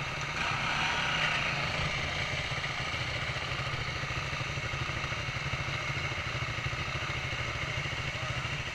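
Dirt bike engines idling steadily, louder for a moment about a second in.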